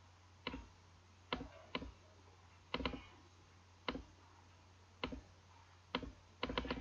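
Computer mouse button clicks, about a dozen at uneven spacing, some in quick pairs and a fast run of several near the end, over a faint steady low hum.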